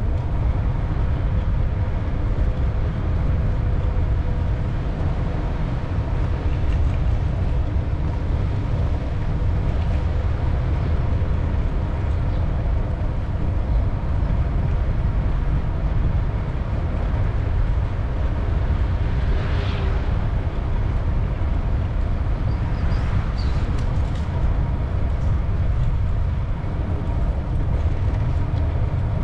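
Steady low rumble of wind and rolling noise on an action camera's microphone while cycling.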